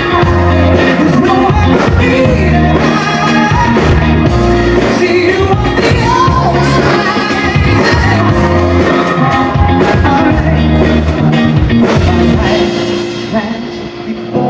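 Live rock-pop band playing loudly, with drums, bass and a singer's voice over it; the volume drops near the end.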